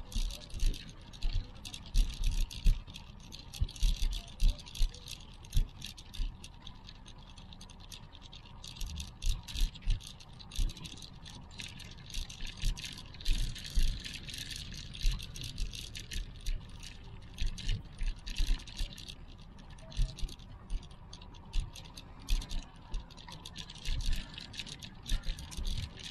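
Irregular low thumps of footsteps and camera handling from someone walking with an action camera, over a steady outdoor hiss.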